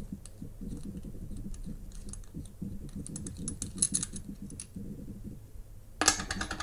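Grand Seiko 6146-8000's stainless steel screw-down caseback being turned off by hand: a run of small ticks and scrapes of metal under fingertips. About six seconds in it comes free with a sharp metallic clink and a brief ringing.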